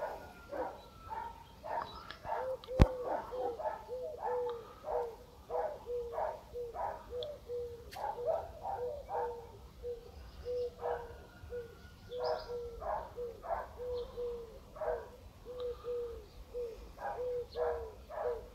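An animal calling over and over, short calls about two a second, with a single sharp click about three seconds in.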